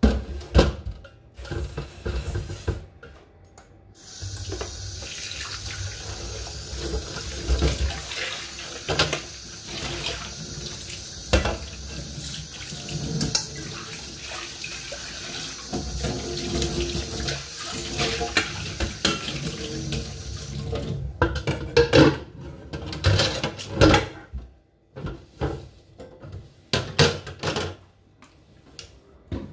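Kitchen tap running into a sink while a pan is rinsed and scrubbed by hand, starting about four seconds in and shut off about twenty seconds in. Pans and utensils knock and clatter against the sink and drainer around the running water, loudest after the tap is turned off.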